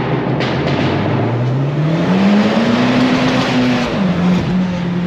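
Car engine accelerating hard, its note climbing steadily for about three seconds, then dropping sharply about four seconds in and holding lower.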